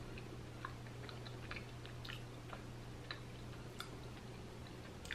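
A person chewing a small bite of plant-based vegan tuna with the mouth closed: faint, irregular small clicks over a low steady hum.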